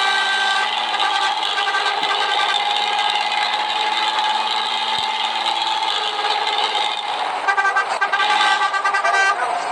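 Hino AK8 bus's front-mounted diesel engine running at a steady pitch, a drone with a whine over it.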